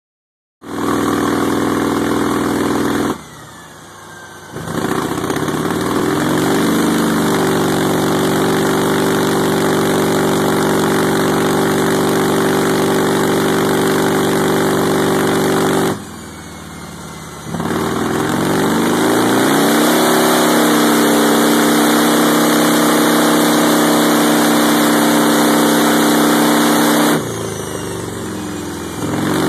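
Buell XB12S's 1203 cc air-cooled V-twin, fitted with a Jardine slip-on exhaust, running on a chassis dyno. It revs up with a rising pitch and holds at high revs. Three times the throttle is closed and the sound drops away, about three seconds in, about halfway through, and near the end, before it builds again.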